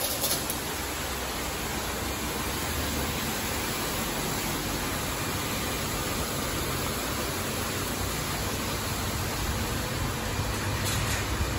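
High-pressure water jets of a LaserWash M5 touchless car wash spraying a car, a steady hiss over a low machine hum.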